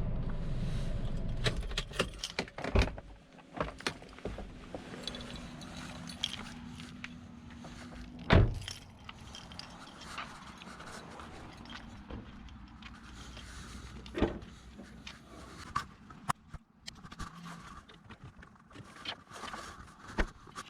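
Scattered light clicks and knocks, one noticeably louder knock a little past eight seconds in, over a low steady background hiss.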